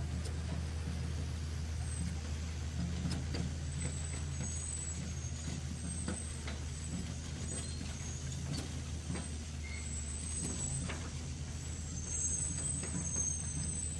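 Remote-controlled toy excavator's electric motors and gears whirring as it swings and digs in sand, with a steady low hum, scattered small clicks and scrapes, and short high whines that come and go.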